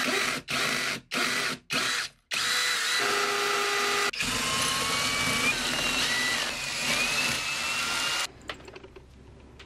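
Cordless drill boring into a soft breeze-block wall. It starts and stops in short bursts over the first couple of seconds, then runs steadily for several seconds before cutting off about eight seconds in, followed by a few faint clicks.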